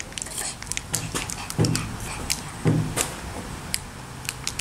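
Plastic candy wrapper crackling and crinkling as it is pulled open by hand, a quick run of sharp little crackles, with a few short low-pitched sounds in between.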